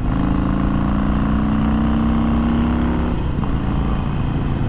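Harley-Davidson Sportster Forty-Eight's 1200 cc V-twin running through aftermarket Magnaflow exhaust pipes under way, its note climbing slowly in pitch. About three seconds in the steady engine note breaks off, leaving a noisy rumble.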